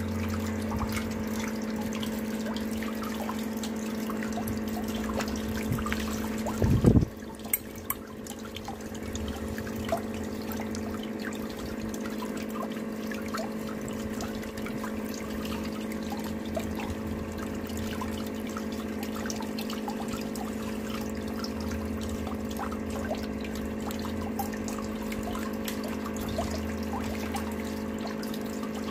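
Water swirling and trickling in a whirlpool vortex over a steady hum, with scattered small splashes and drips. There is one brief loud bump about seven seconds in.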